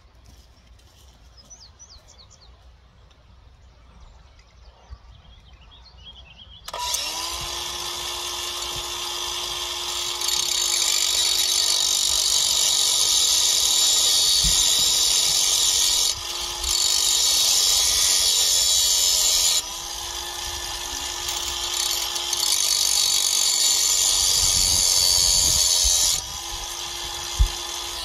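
DeWalt angle grinder starts suddenly about a quarter of the way in and runs steadily, grinding down the metal cam in a door handle's spindle so the latch can draw back far enough. It gets louder partway through, dips briefly twice, and cuts off shortly before the end.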